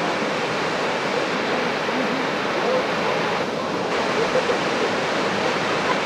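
A 30-metre two-tier waterfall, its water falling in a steady, unbroken rush.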